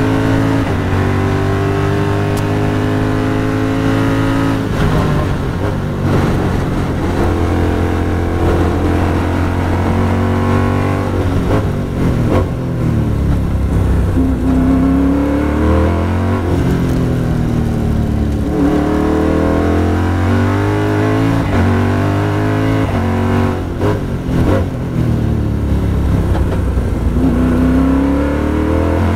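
Onboard sound of a Sigma race car's engine at racing speed. It drops in pitch as the car brakes and downshifts from high speed, then climbs and steps back down repeatedly as the driver accelerates and shifts through the lower gears in the slow corners.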